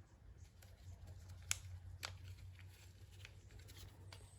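Faint handling of small pigment bags and plastic resin cups: light rustles and ticks, with a sharp click about a second and a half in and another half a second later, over a low steady hum.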